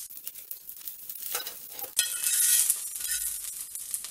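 A tempering of mustard seeds, sesame seeds and curry leaves sizzling and crackling in hot oil on a dosa tawa, stirred with a metal spatula that scrapes the pan. The sizzle grows louder for a moment about two seconds in.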